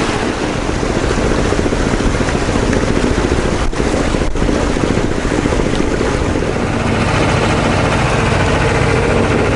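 Sailboat's inboard engine running steadily under way, a low, even rumble with a fine regular pulse and a hiss of air and water over it.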